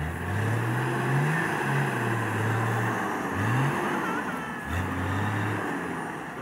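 Off-road 4x4's engine revving repeatedly under load, its pitch climbing and dropping back about four times.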